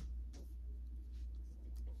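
Quiet room tone dominated by a steady low hum, with a few faint, short taps.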